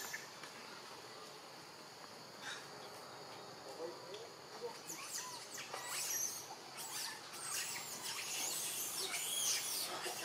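Outdoor forest ambience: a steady, high insect drone, joined about halfway through by a run of quick, high-pitched chirping calls that go on to the end.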